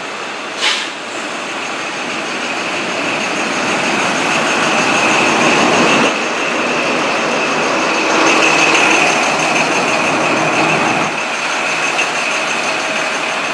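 An InterCity 125 (HST) arriving slowly at a platform: its Class 43 diesel power car runs past close by, building to a peak and dropping off sharply about six seconds in, then the coaches roll by, with a steady high whine throughout. A short sharp high sound less than a second in.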